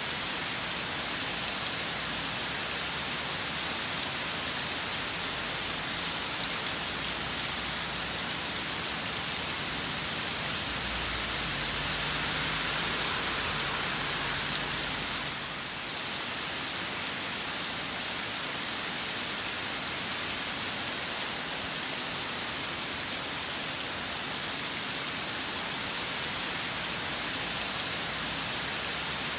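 Steady rain storm falling, an even hiss throughout. A low rumble swells briefly near the middle.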